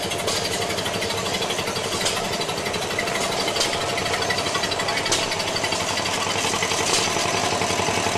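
Vintage truck's engine running with a rapid, even chugging, a few sharper clicks standing out.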